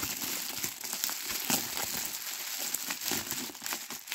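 Plastic bubble wrap around a stack of game cases crinkling and crackling as hands grip and pull at it, with many small sharp crackles throughout.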